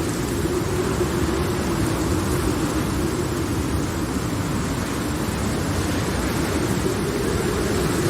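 Steady rain-storm ambience: a dense, even rush of noise with a low, slightly wavering drone held underneath it, and no thunderclaps.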